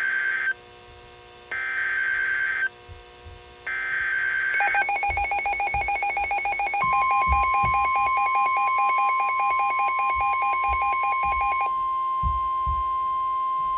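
NOAA Weather Radio SAME alert header: three one-second bursts of screechy digital data. After them a weather alert receiver's alarm beeps rapidly, and about seven seconds in the steady 1050 Hz weather alert tone comes on, which runs on alone once the beeping stops near the end. Together they mark the start of a new warning broadcast.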